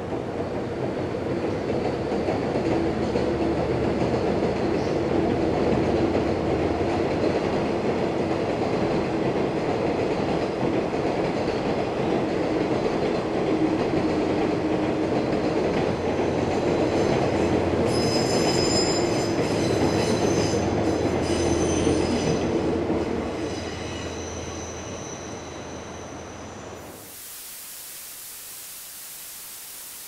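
Freight train crossing a steel girder bridge behind a JR Freight DF200 diesel locomotive: steady engine drone and the rumble and clatter of the container wagons, with high wheel squeal from about eighteen seconds in. The train sound fades as it passes and then gives way abruptly to a steady hiss.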